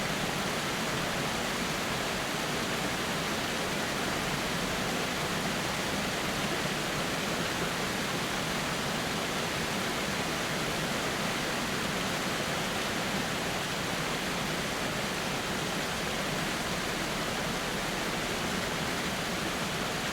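Waterfall rushing: a steady, even roar of falling water that holds at one level throughout.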